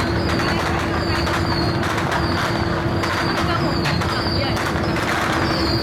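Ferry engine running with a steady low drone and a constant humming tone. Voices murmur in the background, and short high falling chirps recur over the top.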